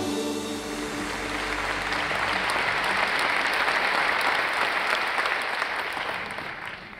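Audience applauding, dying away near the end, with the last notes of the intro music fading out in the first couple of seconds.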